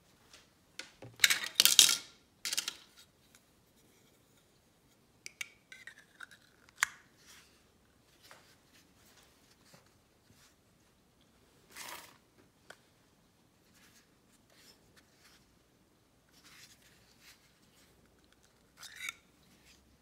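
Handling sounds of a small clip-on lens filter being taken off and fitted to a DJI Osmo Pocket's lens, and filters being moved in a metal tin. A louder rubbing scrape comes about a second in, followed by scattered light clicks and scrapes.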